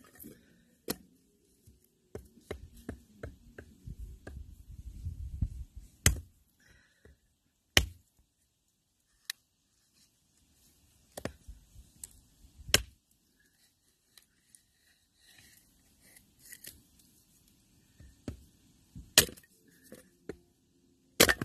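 Small hatchet chopping an upright log into firewood: several sharp chops at uneven intervals. In the first few seconds there is a run of lighter knocks.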